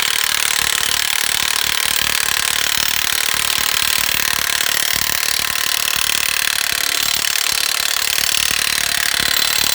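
Impact wrench hammering continuously on a lug nut, drawing a new wheel stud through a semi truck's wheel hub; it stops abruptly near the end.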